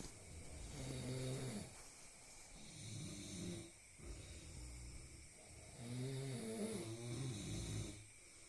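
Snoring: three long, rattling snores a few seconds apart, the last the longest.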